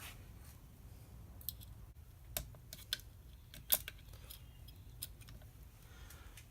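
Scattered sharp metallic clicks and taps of small metal parts being handled as a retainer clip is worked onto a washing machine's new clutch, the loudest a little past halfway.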